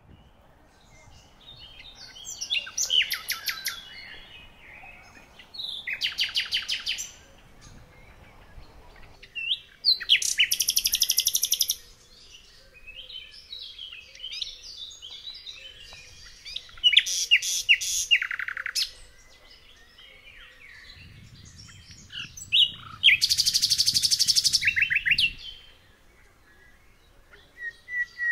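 A songbird singing: loud trilled phrases of rapid repeated notes, each lasting one to two seconds and coming every four to six seconds, with softer chirps in between.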